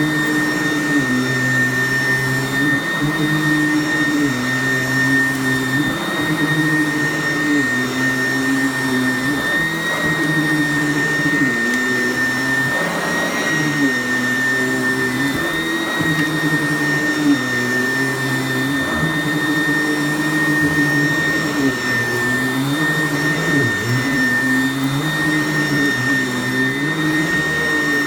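Sanitaire SC888K commercial upright vacuum cleaner running continuously, a steady high whine over a motor hum whose pitch dips and recovers every few seconds.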